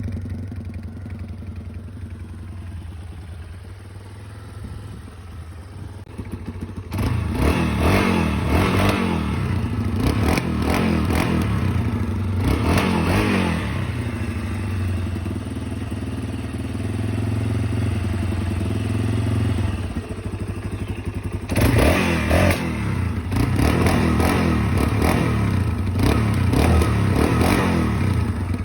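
Yamaha Raptor 350 ATV's single-cylinder four-stroke engine on its stock exhaust, idling just after a cold start, then revved repeatedly in two spells, one about seven seconds in and one about twenty-one seconds in.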